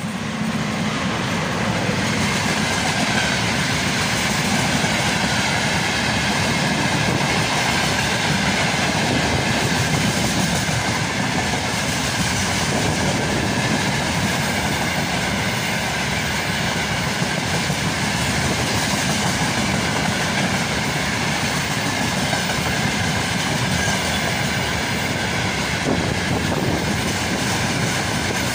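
VL80k electric locomotive passing close by, followed by a long freight train of open gondola wagons rolling past: steady wheel-on-rail noise with the clickety-clack of wheels over the rail joints, getting louder in the first second.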